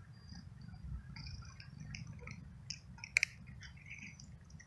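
Tabby kitten crunching dry cat-food kibble: a run of small, irregular crunches, with one sharper click about three seconds in.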